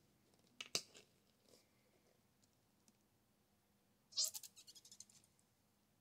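A sharp click, then about three seconds later a brief sputtering squirt: air and paint spitting from the nozzle of a squeeze bottle of ready-to-pour paint as it starts pouring, in a quick run of pops that dies away within a second.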